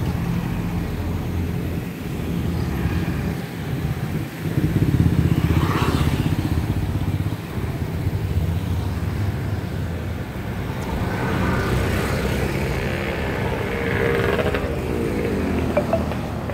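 Street traffic passing close by: small motorcycle and car engines running, loudest a few seconds in as motorcycles ride past. Near the end a passing engine's pitch falls.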